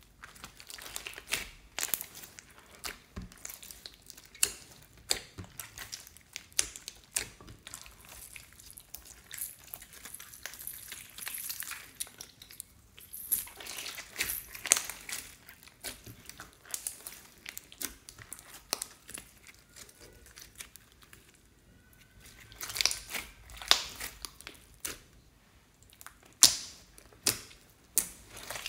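Hands kneading, stretching and poking a large, sticky slime mixed with beads and glitter. It gives off a dense run of irregular crackling clicks and wet pops, with a couple of short pauses.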